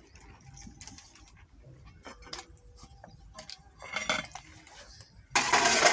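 Steel tumbler and steel bowl clinking and knocking as a toddler handles them, in scattered light clicks with a cluster about four seconds in. A louder, rougher noise lasting about half a second comes near the end.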